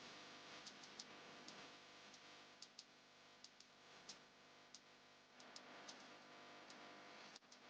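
Near silence: a faint steady hiss with scattered soft clicks at irregular times.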